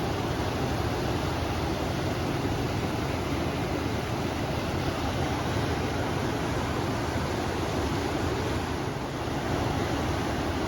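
River water flowing, mixed with wind, as a steady rushing noise with a slight lull about nine seconds in.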